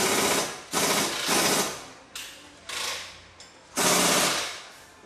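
Pneumatic impact wrench run in about six short bursts, each under a second, tightening fasteners on the car's front suspension during a coilover install.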